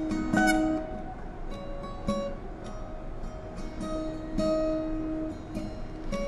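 Instrumental passage of an acoustic folk song: picked acoustic guitar notes over a bowed cello holding long low notes.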